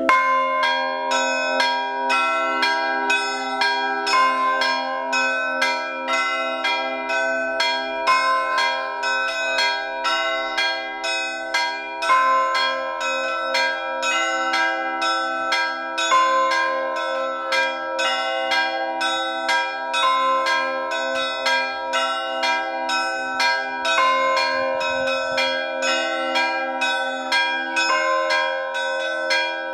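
Orthodox church bells rung in a full chime: small bells struck rapidly, two to three strokes a second, over the sustained, pulsing hum of the larger bells. A heavier bell sounds about every four seconds.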